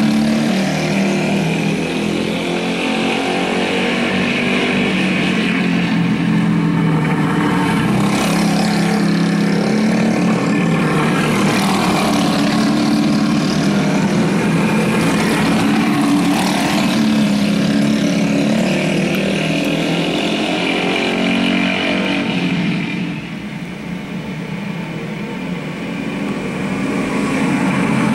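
Several racing go-kart engines running hard together, their pitch rising and falling as the karts lap and pass. The sound drops a little about 23 seconds in, then builds back.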